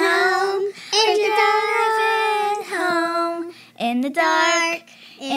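A child singing a run of long held notes, each sustained for a second or two with short breaks between them.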